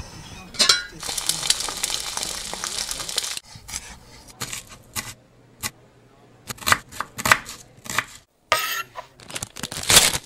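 Anime kitchen sound effects. A gas stove burner lights with a sudden hiss of flame that lasts about three seconds. Then comes a run of sharp snips as kitchen scissors cut green onions. Near the end a plastic food packet crinkles.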